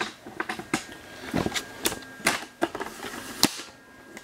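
Camera and tripod being handled and adjusted: a string of irregular sharp clicks and knocks, the loudest a little before the end.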